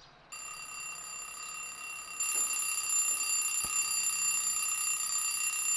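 Alarm clock ringing with one steady, unbroken high tone. It starts softly and gets louder about two seconds in.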